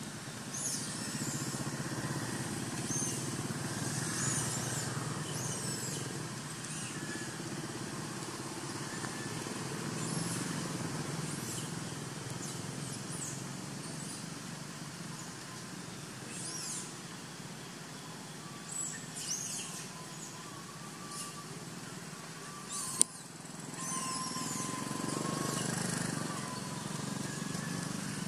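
Outdoor background sound: a steady low rumble, with scattered short, high, downward-sweeping chirps. A thin wavering whistle-like tone comes in the second half, and there is a single sharp click about two-thirds of the way through.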